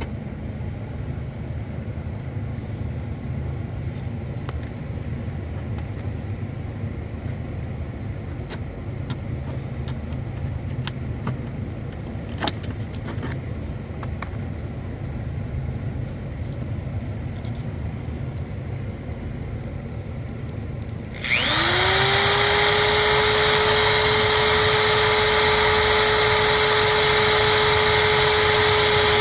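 A steady low hum with scattered light clicks, then about 21 seconds in a small high-speed motor starts suddenly, its whine climbing quickly to a steady high pitch over a loud hiss, and runs evenly from then on.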